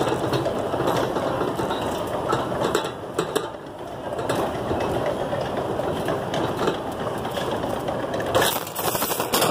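Wire shopping cart rattling as it rides up a shopping-cart escalator, heard from inside the basket: a steady mechanical clatter of the cart on the moving conveyor, louder for a moment near the end.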